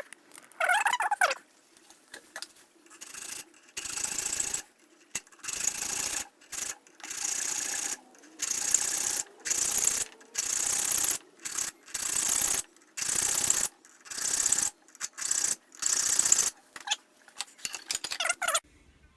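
Hand file rasping on the hardened steel spine of a cleaver forged from a mower blade, in even push strokes about one a second.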